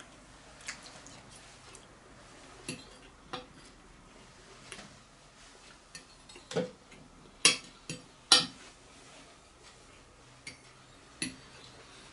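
Knife and fork clinking and scraping on a plate in irregular taps, with two sharper clinks near the middle.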